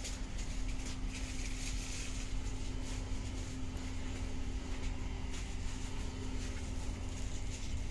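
Inside a standing Škoda EJ575 electric multiple unit: a steady hum from the train's on-board equipment over a low rumble, with a few faint clicks.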